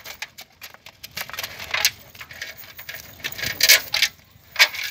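Live shrimp flicking and splashing in a shallow plastic basin while hands pull them out of a mesh net: irregular clicks and rustling, with louder short bursts about two, three and a half and four and a half seconds in.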